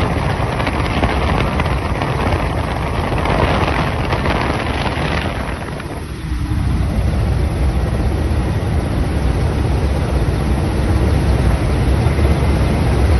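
Ka-52 helicopter's rotors and engines droning steadily, heavily buffeted by wind on the microphone. The level dips briefly about halfway through, then the low rumble comes back heavier.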